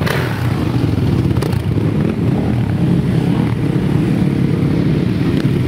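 Several motocross bike engines running as the bikes ride past at low speed, a steady mixed engine rumble.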